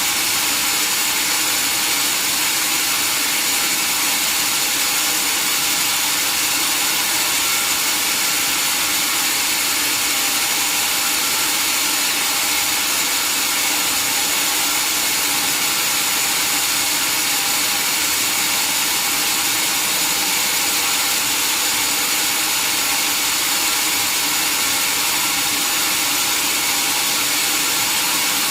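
Sawmill saw cutting steadily through a mahogany log: a continuous, unchanging high-pitched hiss and whine with no breaks.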